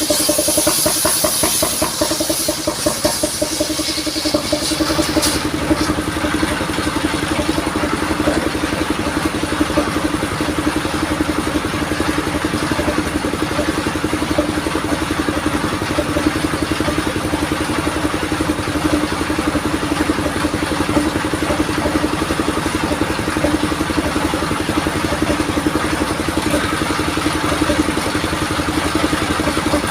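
Engine of a modified saw vehicle running steadily. A loud high hiss over the first five seconds stops sharply.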